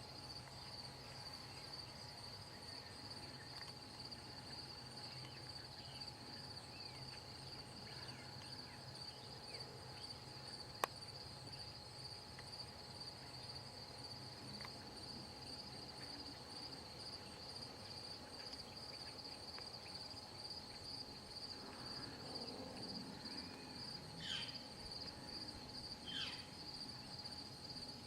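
Crickets chirping in a continuous chorus, a steady high trill over a faint low hum. A single sharp click about eleven seconds in, and a few short falling calls near the end.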